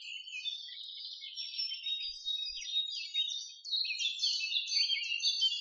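Small songbirds chirping and twittering, many quick notes overlapping, breaking off abruptly at the end.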